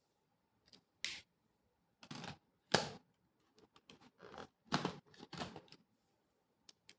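Pen or marker strokes scratching across paper: about a dozen short, irregular strokes of different lengths, the loudest about a third of the way in and again past the middle.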